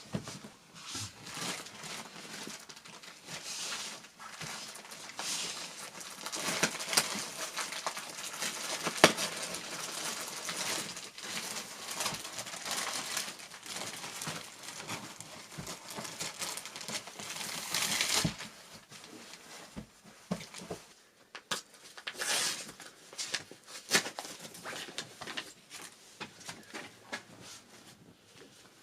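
Crinkling and rustling of packaging or paper being handled, with small clicks and knocks mixed in; fairly continuous for the first two-thirds, then in short spells.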